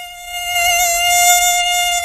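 Mosquito in flight, its wings making a steady high-pitched whine close to the ear, with a slight waver. The whine swells louder about half a second in.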